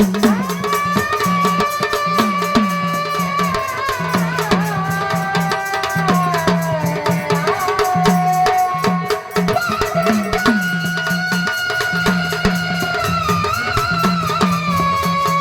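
Marathi devotional folk music of a gondhal party: a drum beats a rhythm with bass strokes that bend down in pitch, under rattling percussion and a held, sliding melody line.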